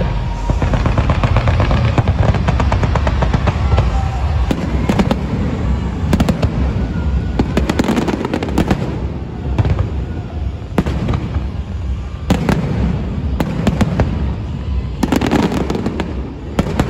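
Fireworks display going off: a continuous low rumble of booms with repeated clusters of rapid, sharp crackling reports.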